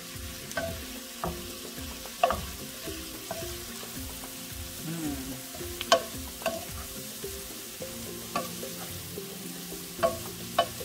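Kale, butternut squash, peppers and onions sizzling as they sauté in a nonstick skillet, stirred with a wooden spoon. The spoon knocks and scrapes against the pan about eight times at irregular moments over the steady sizzle.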